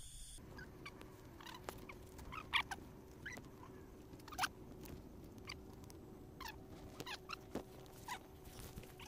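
Short squeaks, each falling steeply in pitch, at irregular intervals, over a steady low hum: a burrowing rodent squealing as it is smoked out of its burrow.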